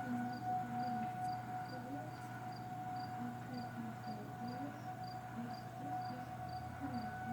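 Distant outdoor warning siren holding one steady tone during a monthly siren test, with a cricket chirping about twice a second.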